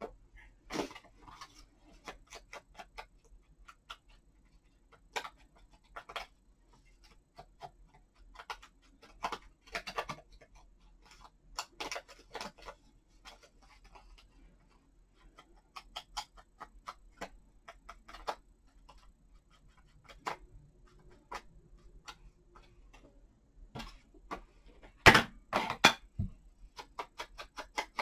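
Paper and craft supplies being handled on a desk: scattered light rustles, taps and clicks, with a louder run of rustling and knocks about 25 seconds in.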